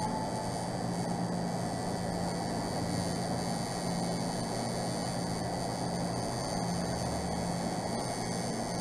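Tattoo machine running steadily as the needle works lines into the skin, a constant buzzing drone with no pauses.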